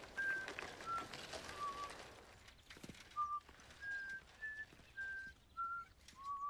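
A person whistling a simple tune: short, clear notes stepping up and down in pitch. For the first couple of seconds it is heard over the soft rustle of a bicycle rolling on a gravel track.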